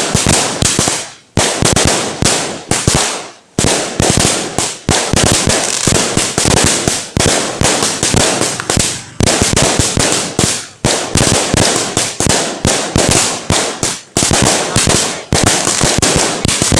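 Fireworks going off in a rapid string of sharp bangs, several a second, with short breaks about one and three and a half seconds in.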